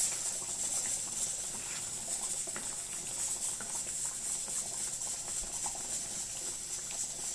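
Thick tamarind gravy simmering, with small bubbling pops and soft scrapes as a wooden spatula stirs it in the pan, over a steady high hiss.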